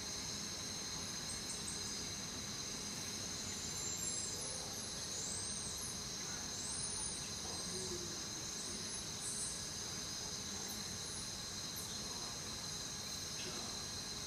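Steady high-pitched insect trilling, with a few faint higher chirps above it in the first half.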